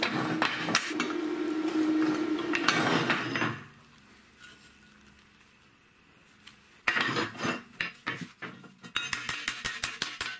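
A dense crackling noise over a steady hum for the first three and a half seconds, then quiet. From about seven seconds in, a hammer strikes sheet steel over and over, the blows coming faster near the end.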